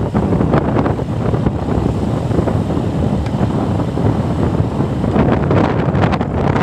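Wind buffeting the microphone while travelling in a moving vehicle, a loud steady rush with gusty surges that covers the vehicle's own running sound.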